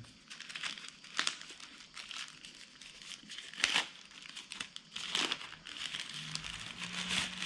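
Protective wrapping crinkling and rustling as it is pulled off a new drone remote controller, with a few sharper crackles about a second in, midway, and just past five seconds.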